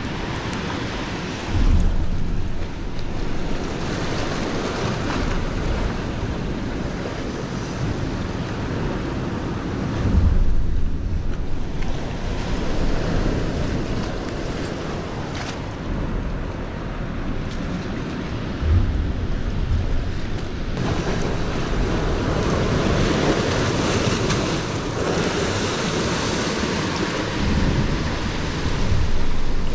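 Sea swell surging and washing against the rocks of a narrow rocky inlet, with wind buffeting the microphone in several low gusts.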